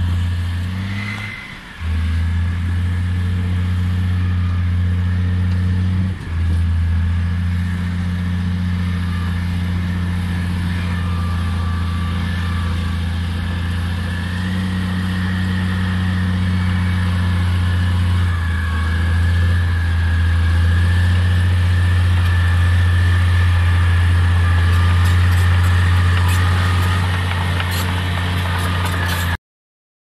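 Komatsu D65P-11 crawler bulldozer's diesel engine running hard under load while pushing earth, a deep steady drone with a thin high whine over it. The sound dips briefly twice in the first few seconds and cuts off just before the end.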